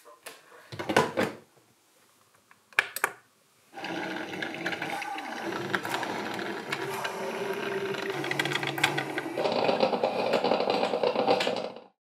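Drip filter coffee maker: a few short clicks and knocks as the lid is shut and the machine switched on, then about four seconds in a continuous brewing noise starts as hot water runs through into the glass carafe, growing louder near the end.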